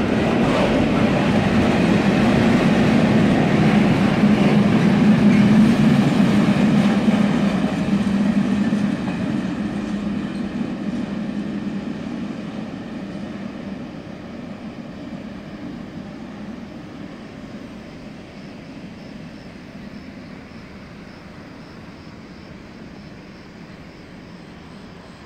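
Freight train of tank wagons rolling past, a steady rumble of wheels on rail. It is loudest about five seconds in, then fades steadily as the end of the train draws away.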